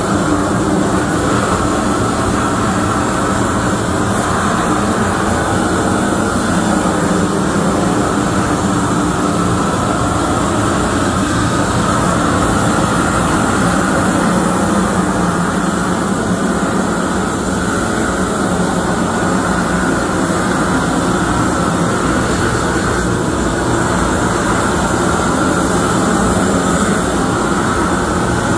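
Hose-fed propane wand torch burning steadily, an even rush of gas flame held against plywood to scorch its grain.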